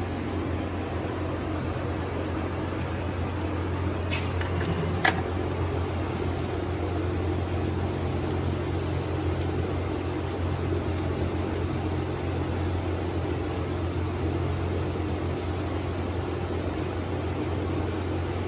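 Steady low mechanical hum, like a fan or motor running, with a few faint clicks and one sharper click about five seconds in.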